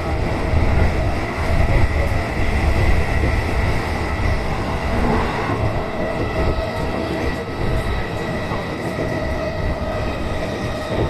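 Electric commuter train running between stations, heard from the front car: a steady rumble of wheels on rail with a faint steady tone over it.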